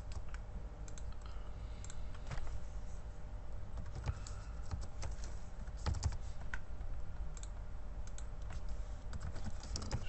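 Computer keyboard typing: scattered, irregular key clicks.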